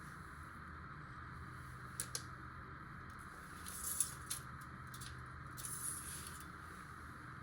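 Engine-oil dipstick being handled during an oil-level check: two light clicks, then two short rubbing, scraping sounds, over a steady background hum.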